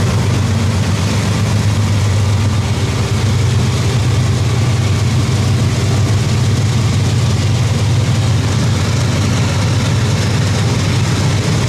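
Diesel locomotive engine working hard under a heavy goods-train load: a loud, steady deep engine drone with an even rushing noise over it.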